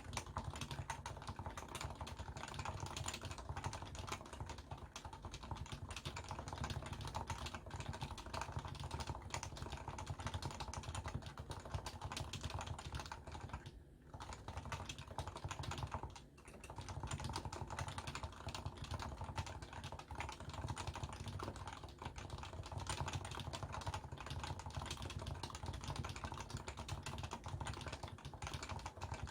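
Fast, continuous typing on a Leopold FC660C keyboard with stock, non-silenced 45g Topre electrostatic capacitive switches, picked up by a phone's microphone. The dense keystrokes pause briefly twice, about halfway through.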